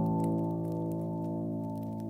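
Soft piano chord ringing out and slowly fading, with faint scattered crackles like a wood fire beneath it.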